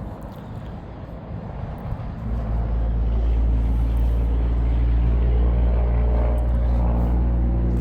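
An engine's steady, even-pitched drone comes in about two seconds in and grows louder, then holds.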